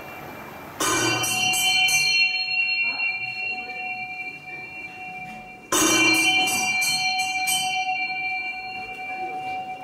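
Bell on a large Tibetan prayer wheel struck twice, about five seconds apart, each strike ringing on and slowly fading. The bell is tripped once per turn as the wheel is spun.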